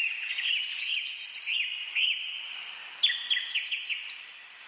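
Small songbirds chirping: a steady run of short, quick up-and-down notes, with a busier, sharper burst of chirps about three seconds in.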